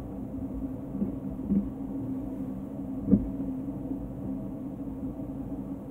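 A fork working at food on a plate, with a few soft taps and one sharper clink about three seconds in, over a steady low appliance hum.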